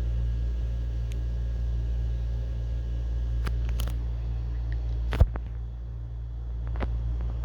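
Toys being handled and set down over a steady low hum: a few light clicks and taps, and one sharp knock about five seconds in.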